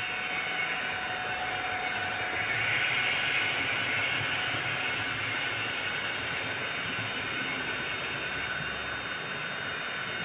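Model Dapol Class 121 diesel railcar running on a layout: a steady mechanical running noise with a thin high whine, swelling slightly a few seconds in.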